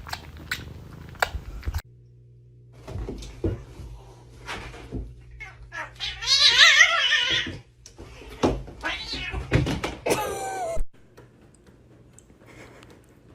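Domestic cat meowing: a loud, long, wavering meow about six seconds in and a shorter falling meow about ten seconds in, among a few knocks and thumps.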